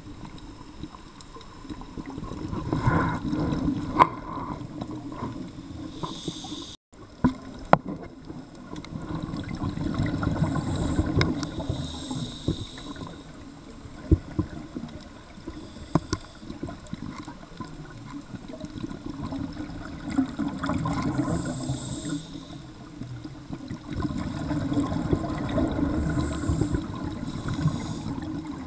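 Scuba regulator exhalation bubbles heard underwater, coming in gurgling surges every several seconds, with a few sharp clicks between them.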